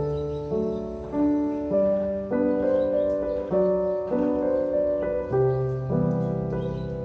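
Gentle solo piano background music, new chords struck at an even pace about every half second to second.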